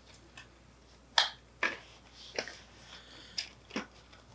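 Sharp little plastic clicks and snaps, about five of them, the first the loudest, as wire-harness connectors are pulled off a Teddy Ruxpin's circuit board by hand.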